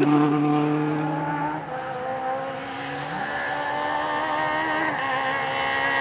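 Rally car engines on a closed stage road. One car's engine fades as it drives away, and from about halfway the next car's engine grows louder as it approaches.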